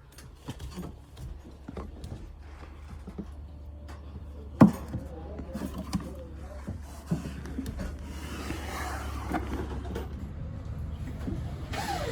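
Scattered knocks and clatter of repair work, with one sharp loud knock about four and a half seconds in, over a steady low rumble.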